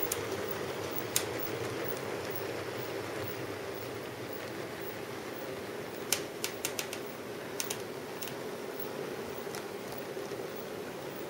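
OO gauge model diesel locomotive running on DC power, its electric motor and gears giving a steady whirring hum as it hauls hopper wagons. Sharp clicks from the wheels on the track break through now and then, with a quick cluster of them about six seconds in.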